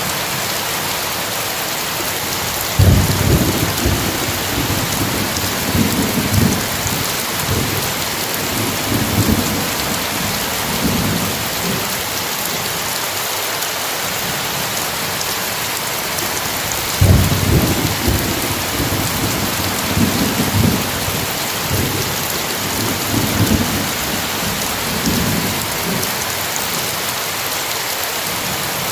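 Steady heavy rain with two rolls of thunder. The first starts with a sharp crack about three seconds in, and the second about seventeen seconds in; each rumbles on in several low waves for six to eight seconds before fading back into the rain.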